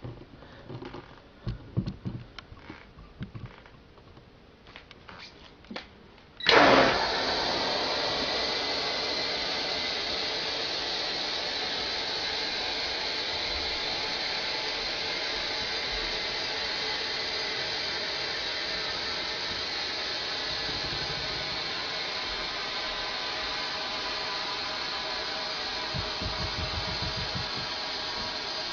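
Compressed air from a tank at about 105 psi released through an alarm-triggered sprinkler valve. After a few seconds of faint clicks, the valve opens suddenly about six seconds in, and a loud, steady rush of air follows with faint whistling tones in it.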